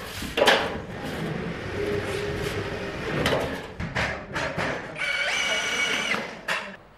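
Light steel drywall studs and track knocking together, then a cordless drill runs with a steady whine for about a second, driving a screw that fixes the stud to the floor track.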